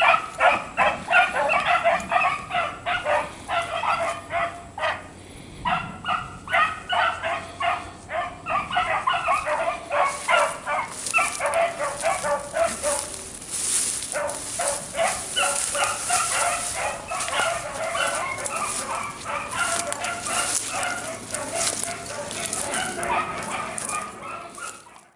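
Beagles baying in quick, overlapping calls while running a rabbit's trail. About ten seconds in, a rustling hiss joins them.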